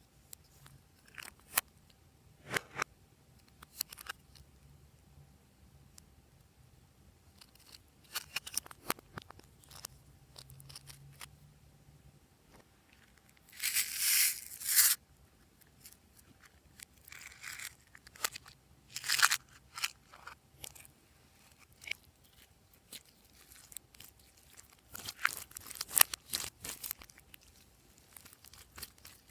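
Hands working glossy slime: scattered crackles and pops, with a longer crinkly rustle about fourteen seconds in.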